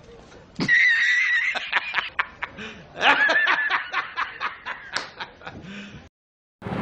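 A man laughing heartily in a long run of repeated laughs that stops suddenly about six seconds in.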